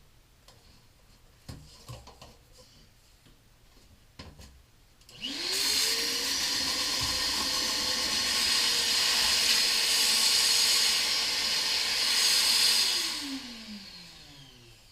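Shop vac switched on about five seconds in, its motor whining up to speed and then running steadily with a loud rushing hiss for about eight seconds, before it is switched off and winds down with a falling whine. Before it starts there are a few light knocks and clicks.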